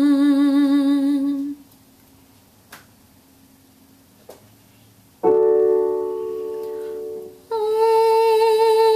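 A singer's "ng" hum with vibrato finishes a slow downward slide and stops about a second and a half in. After a quiet gap with two faint clicks, a piano note is struck and rings, fading. Then the voice comes back on a held, higher "ng" with vibrato as the next descending-fifth slide begins.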